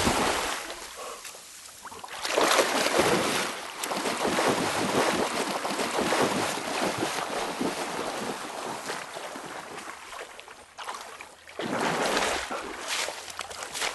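Water splashing and churning as a dog swims and paddles hard through a river, easing off briefly twice.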